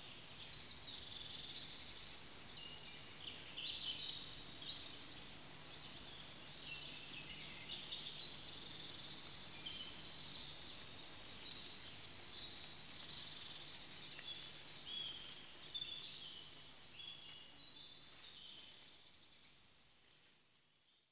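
Birds singing: many short chirps and trills overlapping over a faint background hiss, fading out over the last few seconds.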